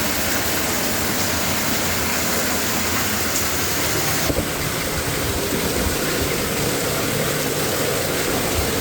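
Steady rushing of falling water from a waterfall inside a mine tunnel.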